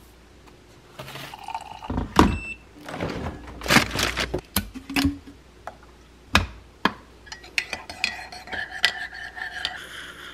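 Metal spoon knocking and clinking against a ceramic coffee mug, with liquid poured into the mug. Near the end come many quick clinks with a ringing tone, like stirring.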